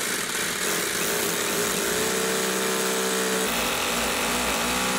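Corded electric hammer drill boring a fixing hole into a concrete-block wall, running without pause. Its motor note shifts about three and a half seconds in and steadies again near the end.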